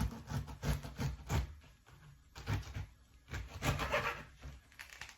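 Kitchen knife cutting and sawing through tough pineapple rind, a series of irregular scraping strokes and knocks.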